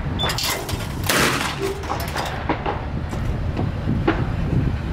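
A single gunshot about a second in, with a short tail after it, among a few lighter clicks over a steady low rumble.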